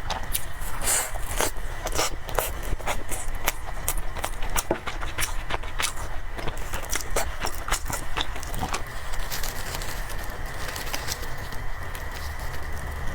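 Eating sounds: many short, sharp mouth clicks and chewing noises with the odd scrape, over a faint steady thin hum.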